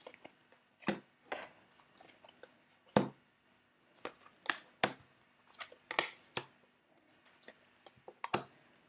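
Astro tarot cards being drawn from a deck and laid down on a table: about a dozen light, sharp taps and clicks at irregular intervals.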